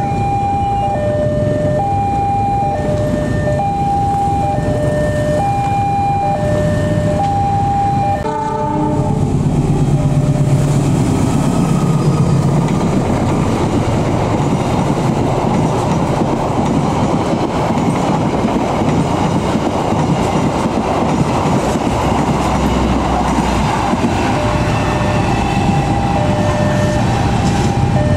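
Level-crossing warning alarm sounding an alternating high and low two-tone chime, about one pair every two seconds. About 8 seconds in it gives way to the loud, steady rumble of a locomotive-hauled passenger train running past on the rails. Near the end the two-tone crossing alarm starts again.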